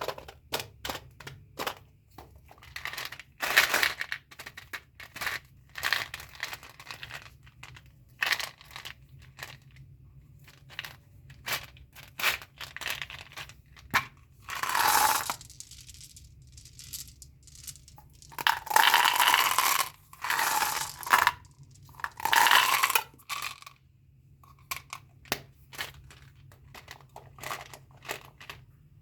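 Candy and bubble-gum packaging being handled and opened: wrappers crinkling and tearing, with many small clicks and taps. There are longer tearing and crinkling bursts throughout, and a louder run of them near the end.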